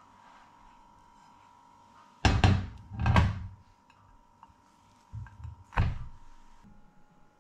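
Thuds and knocks of kitchenware being set down on a stainless steel worktop: two heavy thuds a little over two seconds in, then two lighter knocks between five and six seconds in, as a ceramic plate and the unmoulded cheesecake are put in place.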